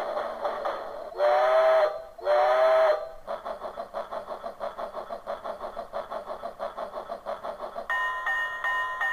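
Train-sound ringtone of a locomotive-shaped novelty telephone playing through its small speaker: an electronic steam-locomotive chuffing in a fast, even rhythm, broken by two steam-whistle blasts about a second in, then the chuffing resumes. Near the end a different, evenly pulsing electronic tone takes over.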